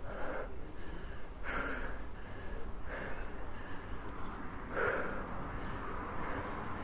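A cyclist breathing hard from the effort of a steep uphill climb: four deep breaths about a second and a half apart, over a steady low rumble.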